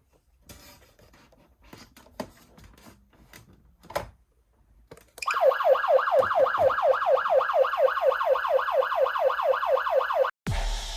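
Whelen Sencom Gold siren amplifier sounding a fast siren tone, about four quick pitch sweeps a second, which starts about halfway through and cuts off abruptly near the end. A few faint clicks come before it.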